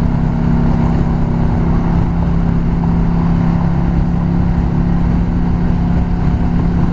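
Yamaha V Star 650's air-cooled V-twin engine running at a steady speed on the road, a constant low hum with wind noise rushing over it.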